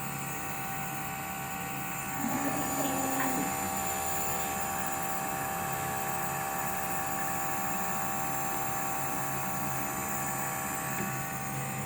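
Small compressor nebulizer running with a steady motor hum during a breathing treatment. A short wavering sound rises over it about two seconds in.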